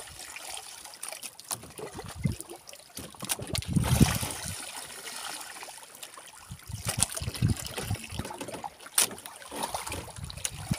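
Water lapping and splashing against the side of a small wooden fishing boat, with scattered knocks and clicks and a louder bump about four seconds in.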